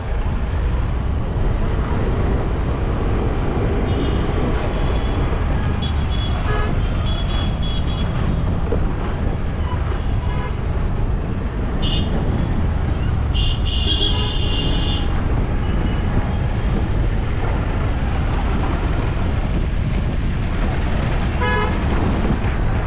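Jammed road traffic: a steady rumble of engines with horns honking now and then, the longest honk about two-thirds of the way through and a quick run of toots near the end.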